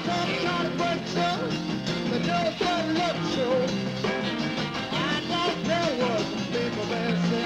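Rock and roll music from a band with electric guitar, playing steadily throughout.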